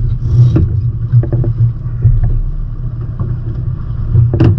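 Water sloshing and slapping against the hulls of a small sailing trimaran, with wind buffeting the microphone as an uneven low rumble. A brief louder swish comes near the end.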